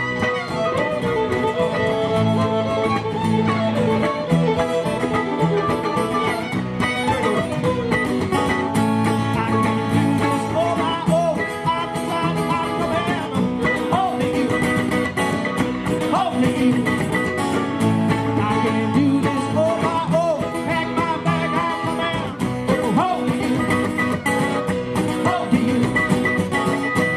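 A live band playing an instrumental break in a country-style song, with guitar to the fore and a melody line bending in pitch over the steady backing.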